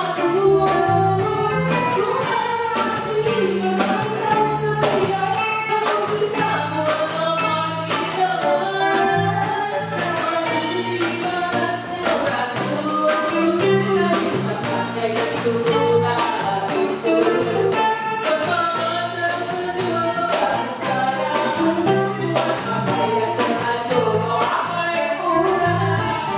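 Live band playing a song: a woman singing into a microphone over electric guitars, a bass line and a drum kit keeping a steady beat.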